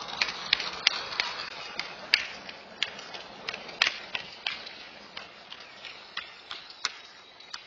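Irregular sharp clicks, a few a second, over a faint hiss that slowly fades away.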